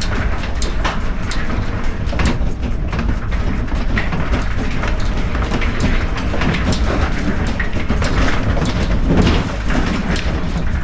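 Lada Niva driving over rough ground: a steady low rumble with a constant clatter of rattles and knocks.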